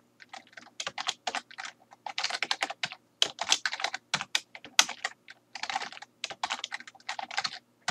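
Typing on a computer keyboard: quick runs of keystroke clicks in bursts, with short pauses between them.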